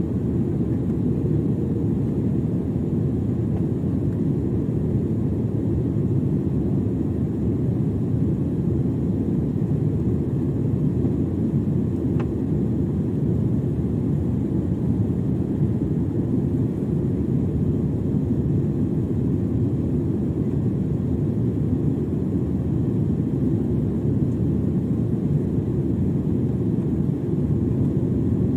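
Steady airliner cabin noise heard from a window seat while descending on approach to land: a dense, even low rush of engines and airflow. A faint steady tone fades out about a second in.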